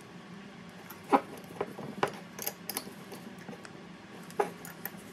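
Light metallic clicks and clinks, about seven separate knocks spread unevenly, as a spanner works the lock nuts and the cast parts of a Porsche 924 Turbo wastegate are fitted back together. A faint steady low hum sits underneath.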